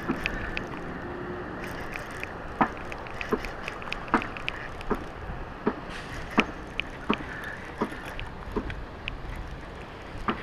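Baitcasting reel being cranked on a retrieve, with irregular light clicks and knocks from the reel and hands over a steady background hiss.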